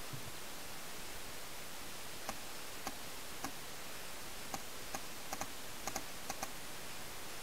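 Scattered sharp pops of paintball markers firing, single shots and quick doubles, faint against a steady hiss.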